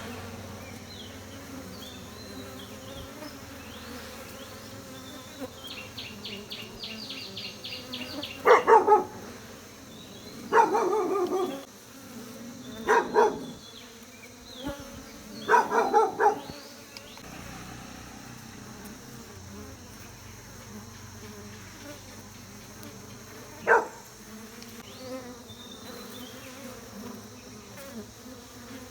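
Honey bees buzzing steadily around a hive. A dog barks in several bouts through the middle and once more later. A fast, high-pitched trill runs for about two seconds just before the first barks.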